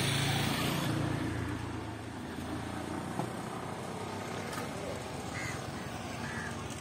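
A motor vehicle passing, loudest at the very start and fading away over about two seconds, leaving a steady low rumble of outdoor background.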